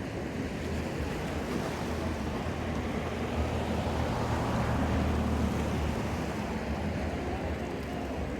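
Ocean surf washing ashore in a steady noisy wash that swells a little about halfway through, with a low rumble of wind on the microphone.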